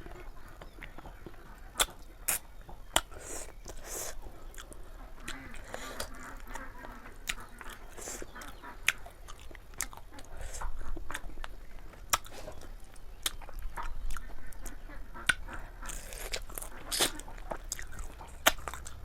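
A person chewing and biting chicken curry with liver, feet and gizzard, close to the microphone: irregular sharp clicks and short smacks, a few every second.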